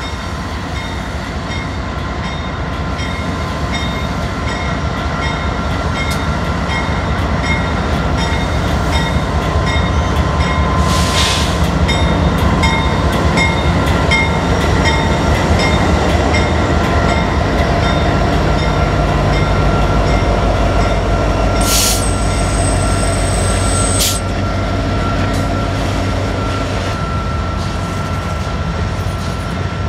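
BNSF manifest freight train rolling past, its wheels rumbling with a steady high wheel squeal, the noise building toward the middle of the passage. A short hiss about a third of the way through, and a brief high squeal lasting about two seconds about two-thirds of the way in.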